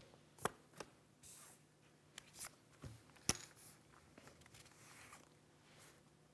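Clay poker chips clicking together in a few sharp, separate clicks as a player handles his chip stack, the loudest about three seconds in.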